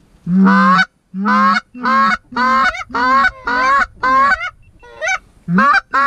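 A Canada goose call blown in a quick string of about nine loud honks, each breaking from a low note up to a higher one, with a short pause before the last two.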